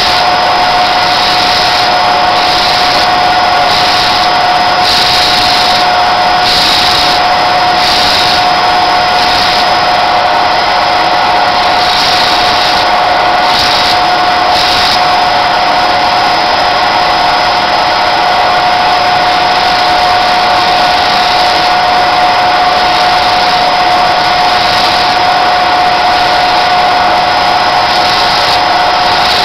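Electric motor spinning a sanding disc at steady speed, giving a loud, steady whine. A higher hiss comes and goes in short spells as the sperm whale jawbone is ground against the disc.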